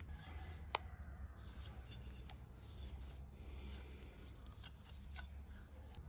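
Steel sheep shears snipping: a sharp metallic click of the blades closing less than a second in, another about two seconds in, then fainter clicks over soft rustling.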